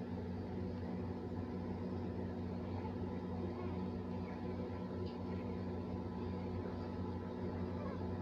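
A steady low hum of some running machine, even throughout, with a faint brief high sound about five seconds in.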